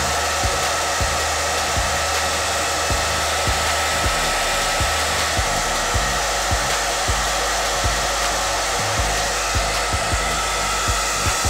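Handheld hair dryer running steadily, blowing air on hair at close range, with a faint steady whine in the rush and irregular low thumps.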